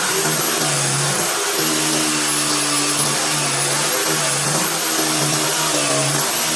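Electric power tool motor running steadily, with a continuous whirring hiss and a hum that shifts slightly in pitch as the load changes.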